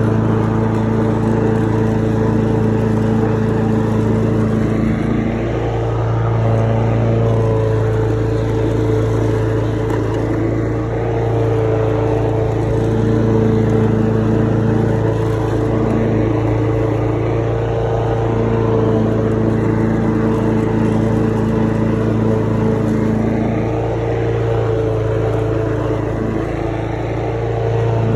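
Lawn mower engine running steadily at a constant pitch while mowing.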